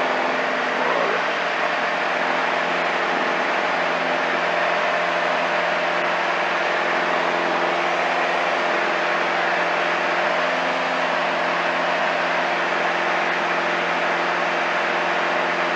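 Cabin noise of a single-engine light aircraft in level flight: the piston engine and propeller drone steadily, with a few constant low tones under an even rush of air.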